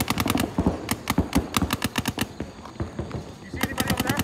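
Paintball markers firing in fast strings of shots, about ten a second. A string at the start gives way to scattered single shots, a short lull, and another fast string near the end.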